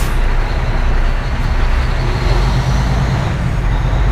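Semi-truck diesel engine heard from inside the cab as the truck pulls away from a stop. A steady low rumble grows heavier about two seconds in as the engine takes up the load.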